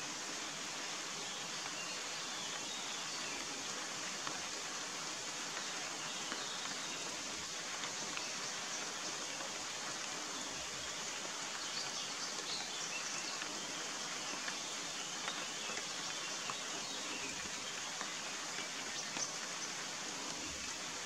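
Steady rain falling, an even hiss with scattered faint taps of drops.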